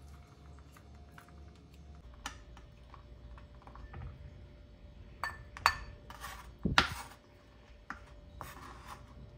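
Kitchen knife scraping and knocking on a bamboo cutting board while chopped raisins are scooped up and tipped into a ceramic bowl. A few sharp clicks and clinks with short scrapes, the loudest knock about seven seconds in.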